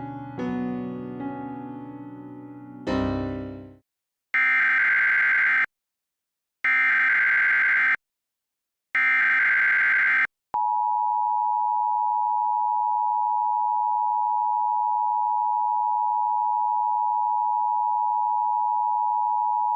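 Piano music ends on a final chord. Then come three short bursts of Emergency Alert System SAME header data tones, each about a second and a half long. They are followed by the EAS attention signal, a steady two-tone beep (853 and 960 Hz) that starts about ten and a half seconds in and is held to the end.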